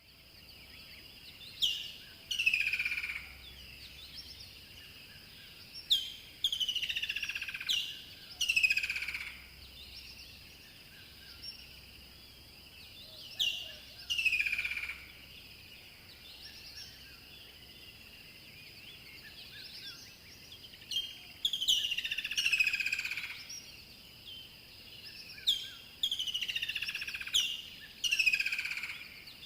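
Rainforest birds calling: loud, repeated falling whistles, each starting with a sharp short note and sliding down in pitch, in bursts of two to four calls every few seconds. A steady high-pitched hum runs underneath.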